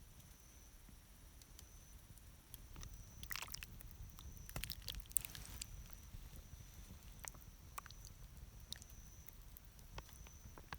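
Quiet eating: soft chewing and small scattered clicks, busiest about three to six seconds in, over a faint steady high whine.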